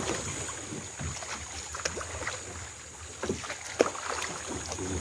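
Water splashing and lapping around a small paddled outrigger boat, with a few short sharp knocks, the loudest near the end.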